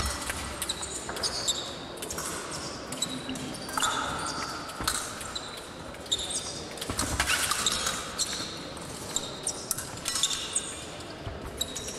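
Épée fencing bout: quick knocking footwork, stamps and shoe squeaks on the piste, mixed with sharp clicks and clinks of blades meeting, irregular and fast throughout.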